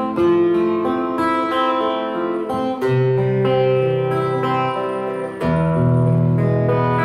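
Steel-string acoustic guitar played, with notes and chords struck every half second to a second and left ringing. Its signal is sent through a MUKU MS-08 wireless transmitter and receiver.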